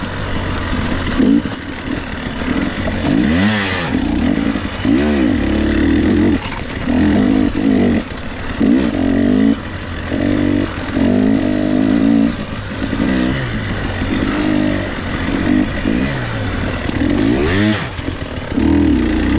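300 cc two-stroke enduro dirt bike engine, heard up close, revving up and falling back in short bursts of throttle about every second or so as the bike is ridden.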